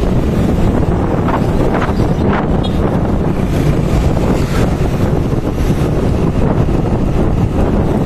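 Wind buffeting the microphone of a moving motorcycle: a loud, steady low rush of noise.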